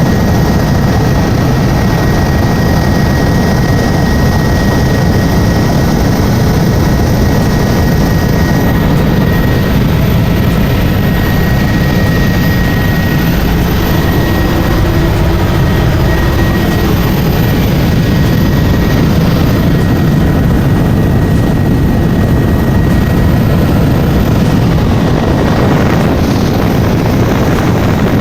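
Helicopter engine and rotor running steadily and loudly: a constant low drone with a thin high whine over it.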